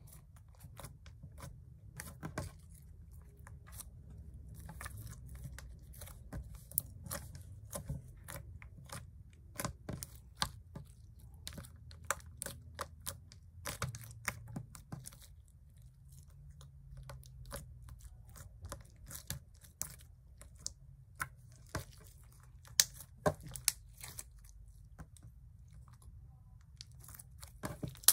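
Fingers poking, pressing and squishing a lump of white slime with beads mixed in, giving many irregular sticky clicks, pops and crackles.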